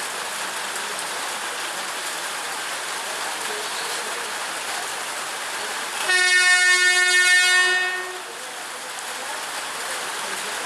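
Horn of an ICF MEDHA three-phase electric multiple unit local train sounding once, about six seconds in, for about two seconds as the train approaches. A steady hiss of rain runs underneath.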